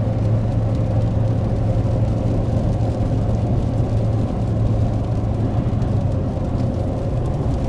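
Steady low drone of a car or truck on the move, engine and road noise holding an even level.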